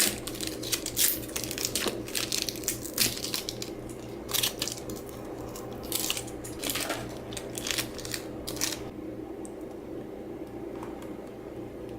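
Plastic electrolyte pack and its packaging being handled and opened: a run of sharp crinkling and crackling that thins out after about nine seconds, over a steady low hum.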